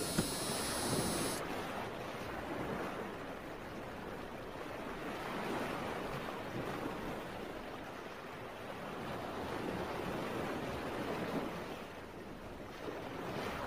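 Steady rush of water and wind heard aboard a small fishing boat moving across a lake.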